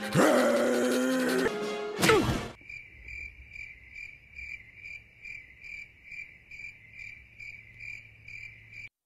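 Cricket chirping, steady and rhythmic at about two and a half chirps a second, used as an awkward-silence gag sound effect. It follows a short voiced sound and a sudden loud burst in the first two and a half seconds.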